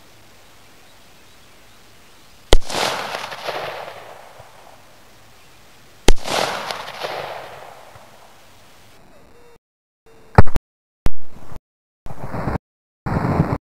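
Two gunshots about three and a half seconds apart, each followed by a long echo dying away. From about ten seconds in, the sound cuts in and out in short pieces with silences between, two more sharp shots among them.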